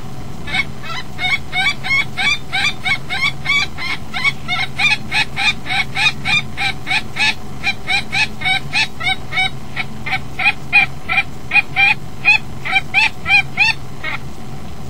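Female common kestrel giving a long, rapid series of high, rising alarm calls, about three or four a second, louder in the last few seconds before they stop abruptly. She is agitated by a jackdaw at the nest box. A steady low hum runs underneath.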